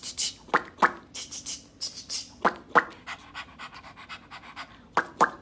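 A woman making mouth noises to imitate brushing her teeth: breathy scrubbing hisses and three pairs of short, sharp panting sounds, about two and a half seconds apart.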